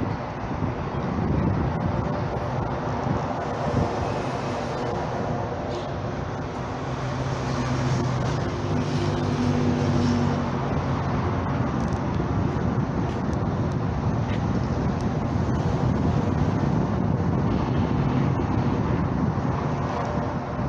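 City street traffic: a steady wash of cars and engines going by. A vehicle engine's low hum stands out for a few seconds near the middle.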